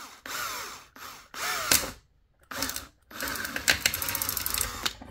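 Cordless drill with a small 3 mm bit boring a pilot hole into 3D-printed plastic. It runs in several short bursts with brief pauses, and the motor's whine rises and falls with the trigger.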